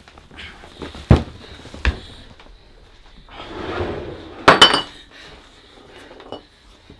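Hard objects knocking and clinking: two sharp knocks, a rustling swell, then a loud clatter with a brief metallic, glassy ring about four and a half seconds in.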